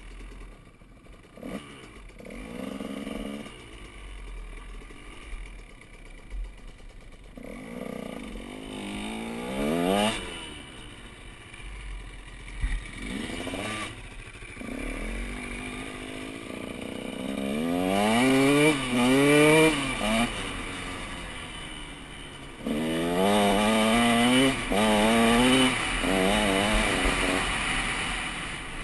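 KTM 150 SX single-cylinder two-stroke dirt bike engine under way, its revs climbing and dropping in a series of throttle pulls and gear changes. The hardest pulls come about two-thirds of the way through.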